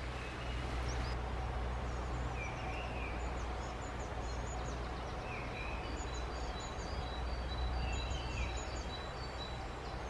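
Woodland birds calling and singing: many short high chirps and trills, and a short warbling call repeated about every two to three seconds, over a steady low rumble.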